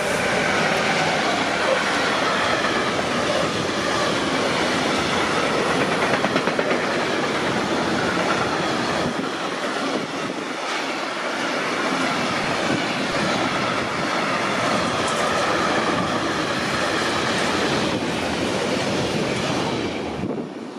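Deutsche Bahn train passing on the line: a steady, loud rush of wheel-on-rail noise with wheels clattering over the rail joints.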